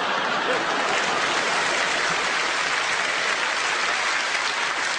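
Stand-up comedy audience applauding steadily after a punchline.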